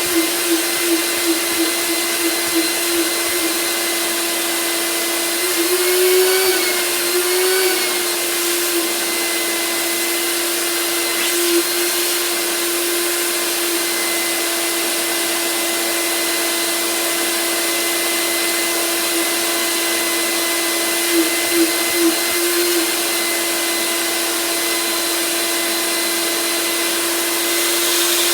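A 48-year-old shop vac running with a steady, loud motor whine. The pitch wavers a few seconds in, and the tone pulses several times near the start and again about three quarters of the way through.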